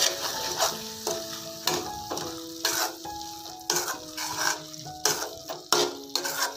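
Metal spoon stirring and scraping thick tomato gravy in an aluminium kadai, the gravy sizzling in oil, with repeated scrapes and taps against the pan about once or twice a second. The curry masala powder just added is being mixed in and fried in the oil, with no water.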